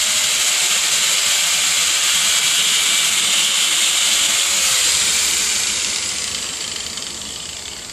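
Corded electric angle grinder cutting into PVC pipe, a loud steady hiss and high whine. About five seconds in it is switched off and spins down, its whine falling in pitch as the sound fades.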